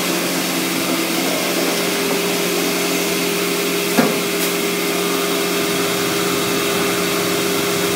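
EFI VUTEk 320 wide-format printer running: a steady mechanical hum with a hiss over two steady low tones, and a single sharp click about four seconds in.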